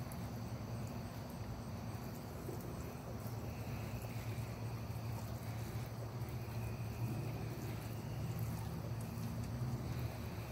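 Insects trilling in faint bursts about a second long, roughly every three to four seconds, over a steady low hum.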